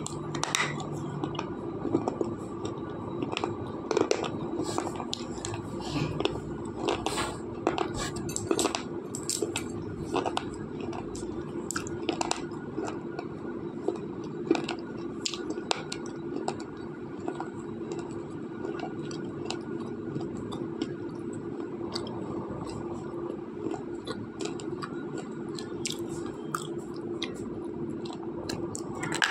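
Slate pencil being chewed: hard, dry crunching and cracking between the teeth, with many sharp cracks in the first half and fewer later. The pencil is a very hard one.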